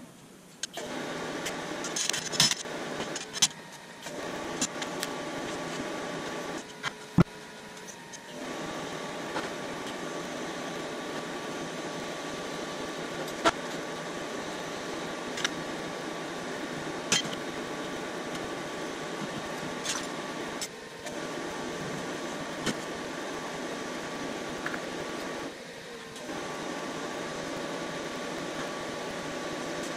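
Arc welding on steel: the arc's steady hiss runs in long stretches, stopping briefly a few times between welds, with a few sharp clicks.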